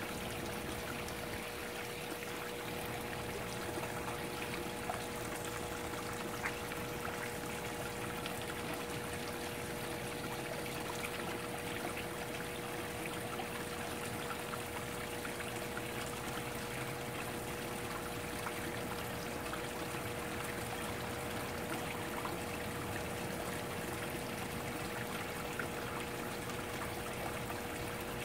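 Water in a garden koi pond running and trickling steadily, with a faint steady hum under it and a few light ticks.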